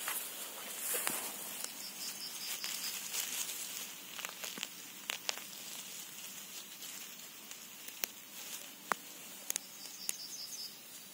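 Rustling of grass and dry leaf litter, with scattered sharp clicks and snaps, as a hand works in the forest floor to pick a small mushroom. A short, high chirping trill sounds twice, a few seconds in and near the end.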